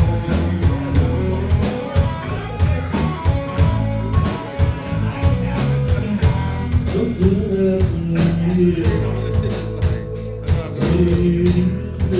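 Rock band playing an instrumental passage: electric guitar lines over bass and a drum kit keeping a steady beat.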